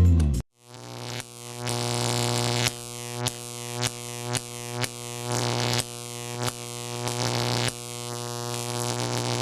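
Electronic synthesizer music: a sustained droning chord with short pulses about every half second to a second.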